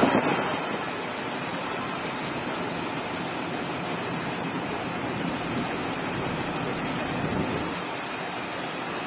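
Steady rushing of wind and sea water, heard from a boat on open water. It is a little louder for the first half second, then holds even.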